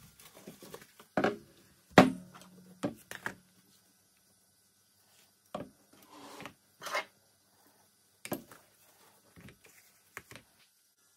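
Irregular knocks, taps and short rubbing sounds of hand tools and small wooden icon boards being handled on a work surface. The loudest knock comes about two seconds in, with a spread-out cluster of smaller taps and scrapes after it.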